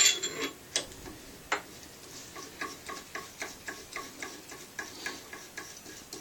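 Metal clicks of an AR-15 barrel nut being slid over the barrel and turned onto the upper receiver's threads by hand. A few sharp clicks come in the first second and a half, then light, regular ticks, about two or three a second.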